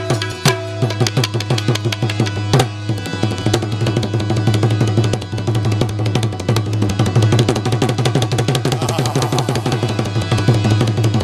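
Tabla played in a fast, dense rhythm over a steady sustained harmonium drone, an instrumental passage of Gujarati devotional folk music.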